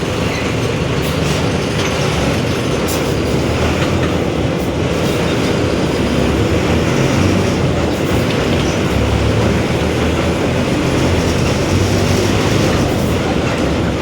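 Mercedes-Benz OF-1721 BlueTec 5 city bus running under way: a steady, loud drivetrain and road rumble whose deep low hum swells and fades every few seconds, with the differential growling. A few light clicks and rattles come through over it.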